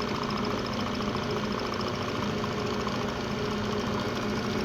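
Restored Van Norman Model 204 brake lathe running steadily: its electric motor, belt drive and Zero Max gearbox give an even hum with a fine, rapid ticking.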